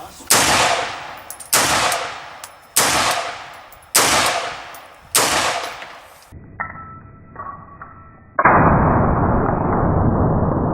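Five semi-automatic shots from an AR-15 rifle in 5.56 fitted with a muzzle brake, fired about a second and a quarter apart, each with a long echoing tail. After a short lull, a loud steady rushing noise starts about eight seconds in.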